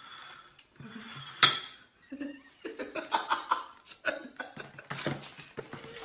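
Ceramic bowls knocking and clinking on a tabletop, with one sharp clink about one and a half seconds in, followed by laughter and voices.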